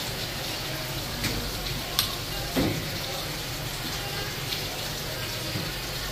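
Steady hiss of running water in a sink, with a few sharp clicks and one dull knock about two and a half seconds in.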